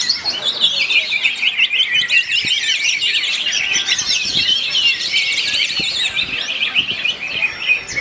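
Caged cucak hijau (greater green leafbirds) singing loudly at once, a continuous dense tangle of rapid, high-pitched warbling, trills and whistles from several birds overlapping.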